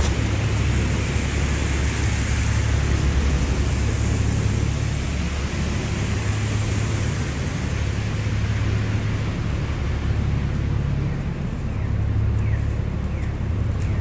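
Street traffic on snowy downtown streets: a steady low rumble with tyre hiss. The hiss swells in the first few seconds and then fades.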